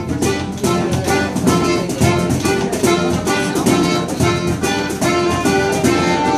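Acoustic folk band playing a lively tune: accordion and fiddle carrying the melody over strummed acoustic guitars, with a hand drum keeping a steady beat.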